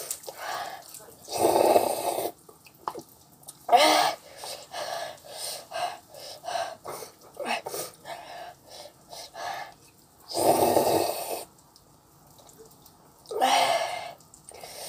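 Someone eating instant cup noodles: four loud slurps, each about a second long, with small clicks and chewing sounds between them.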